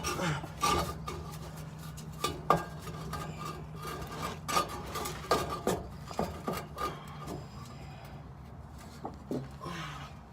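Scattered metal clinks, knocks and scrapes of tools and exhaust parts being handled and fitted, over a steady low hum.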